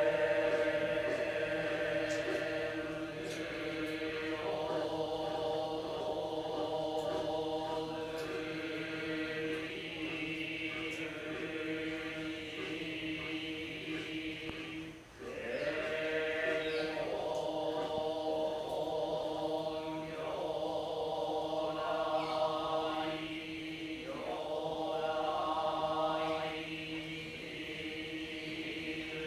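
Buddhist monks chanting together in long, held tones during an Obon memorial service, with a short break for breath about halfway through. At the start the ring of a struck temple bell dies away beneath the voices.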